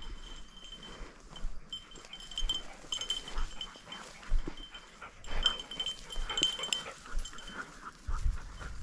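A hunting dog's collar bell tinkling on and off as the dog works through the brush, over soft footsteps and rustling in the undergrowth.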